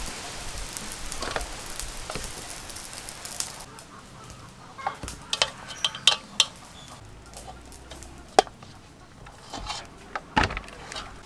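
Wet squelching and slapping as a whole duck is worked over by hand in a sticky chili marinade in a steel bowl, followed by a run of sharp clicks and knocks from handling the meat and a wooden skewer against the bowl.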